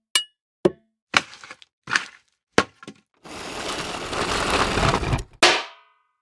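A run of separate impact sound effects: about six short knocks and thuds in the first three seconds, then a noisy crash that builds for about two seconds and ends in a sharp hit with a brief ringing tail.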